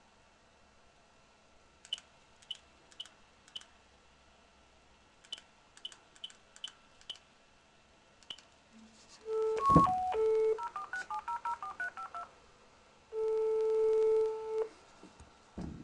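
A phone call being dialled: a few faint clicks, then short line tones, a quick run of about ten touch-tone (DTMF) beeps as the number is keyed in, and a single ringback tone held about a second and a half while the line rings. A low thump comes near the end.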